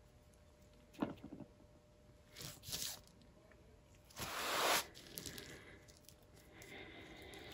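Small handling noises while paint is being poured: a sharp knock about a second in, then short rustling, scraping sounds, the loudest lasting about half a second around the middle.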